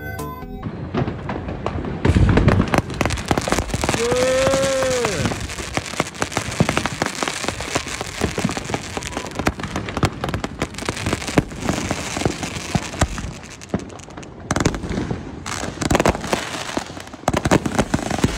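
Consumer fireworks going off: dense crackling and rapid popping from firing cakes and fountains, with a heavy boom about two seconds in. About four seconds in comes a short rising-and-falling whoop.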